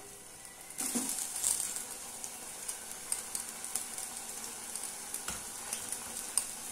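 Raw banana slices hitting hot oil: about a second in, the oil breaks into a sudden sizzle that carries on as steady deep-frying, a high hiss with small crackling pops.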